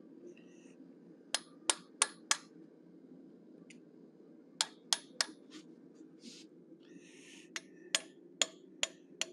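Hammer striking a hand chisel held on red-hot steel on the anvil: about a dozen sharp metallic taps in three quick runs of four, three and five, each with a brief high ring.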